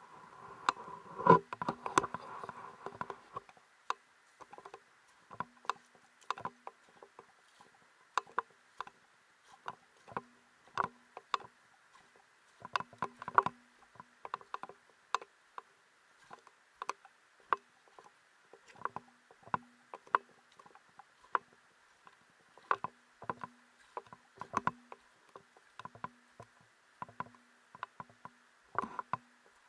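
Footsteps crunching and clacking on loose pebbles and river stones, irregular, about one to two steps a second, loudest in the first few seconds. A faint steady high hum lies behind.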